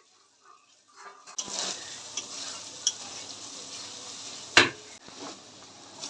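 Sliced onions and spices sizzling in hot oil in a steel kadai, the sizzle starting about a second in, while a metal spatula stirs them, scraping and clinking against the pan. A few sharp knocks of the spatula on the pan; the loudest comes a little past the middle.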